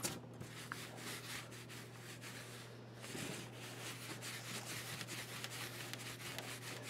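Paint roller rolled back and forth over a carved foam brick panel, a steady rough rubbing with brief pauses where the stroke turns, over a steady low hum.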